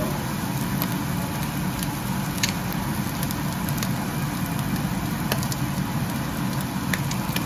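Chopped onion frying in a nonstick pan, a soft sizzle with a few faint crackles over a steady low hum.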